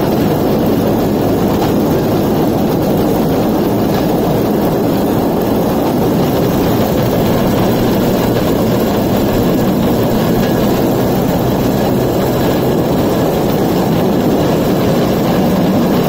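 Suzuki 125cc two-stroke engine of a homemade rail cart running steadily under way, with its steel wheels rolling along the rails.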